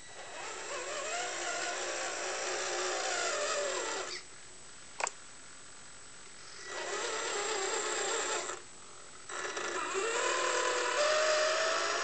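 Electric drive motor and gearbox of a 1/14-scale Tamiya Globe Liner RC truck whining as it drives, in three runs, its pitch rising and falling with speed. A single sharp click about five seconds in.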